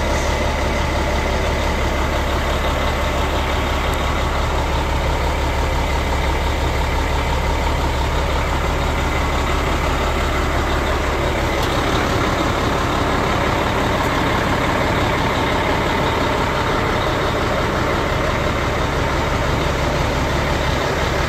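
Caterpillar C10 inline-six diesel in a 2000 Peterbilt 379 idling steadily, heard from inside the truck's cab.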